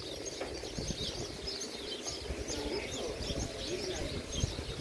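A crowd of small birds chirping, a dense chatter of short, high chirps, over a low, uneven outdoor rumble.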